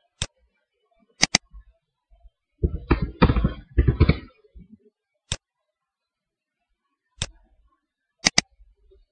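Computer mouse clicking: a single click, a quick pair of clicks about a second in, two more single clicks, and another quick pair near the end. In the middle, a short burst of keyboard typing as a word is keyed in.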